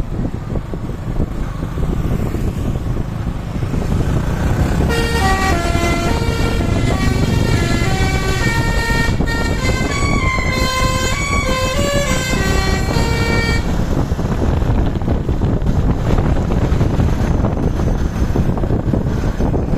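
Tour bus 'telolet' multi-tone air horn playing a quick tune of stepped notes for about eight seconds, starting about five seconds in. A steady low rumble with wind noise runs underneath.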